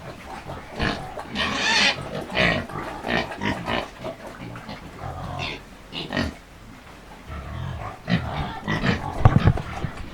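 Pigs making loud, irregular grunts and squeals in short bursts at feeding time, clamouring for food.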